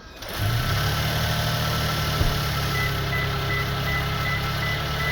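A 2023+ Toyota Sequoia's twin-turbo V6 hybrid powertrain starts about a third of a second in and settles straight into a steady idle. From about three seconds in, a high electronic chime repeats about two and a half times a second.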